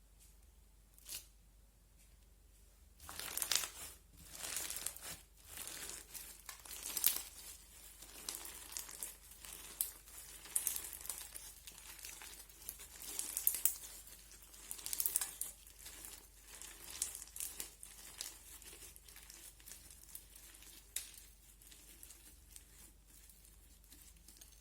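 Crunchy slime being squeezed and pressed by hand, crackling and crinkling in repeated bursts about once a second. It starts about three seconds in and thins out near the end.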